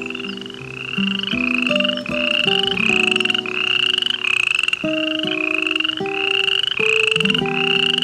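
An animal call repeated about twice a second, each call a short, high trill that rises slightly in pitch, over background music with held, changing low notes.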